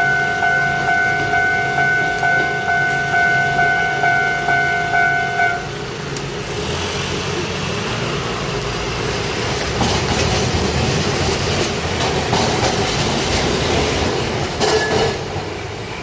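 Japanese level crossing alarm ringing in a steady repeating ding-ding, stopping about five and a half seconds in. A train then rumbles across the crossing, its wheels clacking over the rail joints.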